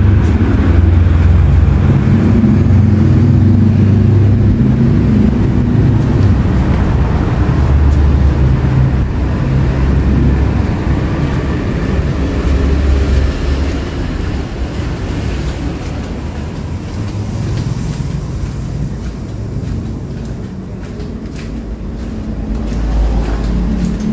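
Road traffic: vehicle engines running and passing, a low rumble that is louder in the first half and eases off after the middle.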